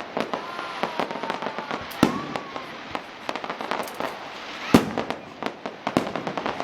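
Fireworks display: a rapid run of crackling pops and bangs, with two louder bangs about two seconds in and near five seconds, and a few faint falling whistles early on.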